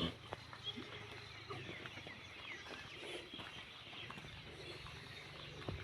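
Small birds chirping faintly and continuously, with a few sharp knocks, one at the very start and one near the end.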